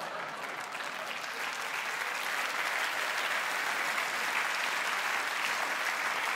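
Audience applauding a joke: dense, steady clapping that swells slightly over the first couple of seconds.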